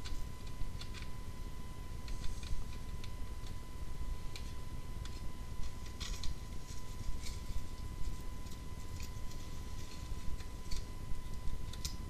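Sheet-metal clicks and light rattles from galvanized adjustable vent elbows being twisted and pushed together to make an offset, with small snapping clicks as a section pops into place.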